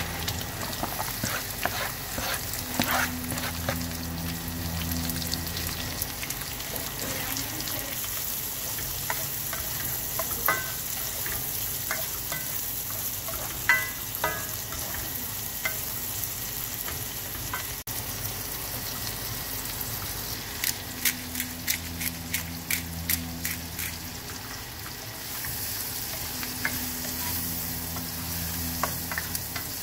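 Diced pork and onions sizzling in hot fat in a nonstick frying pan, stirred with a plastic spoon that scrapes and clicks against the pan. A quick run of clicks comes about two-thirds of the way through.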